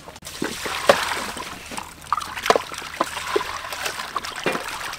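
Water splashing and trickling in a steel bowl as raw chicken pieces are washed by hand, with water poured in from a plastic dipper. Short knocks and splashes sound through it.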